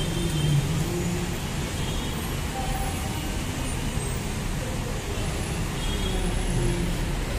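Steady motor-vehicle noise: a low, even rumble with faint wavering tones.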